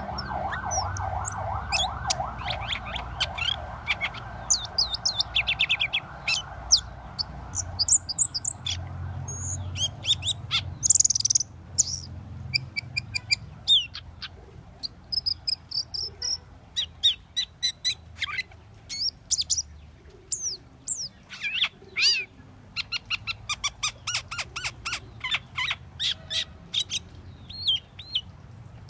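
Asian glossy starling singing: an uneven string of sharp chirps, squeaky whistles and clicks, with a harsh loud call about a third of the way in and a quick run of ticking notes later on.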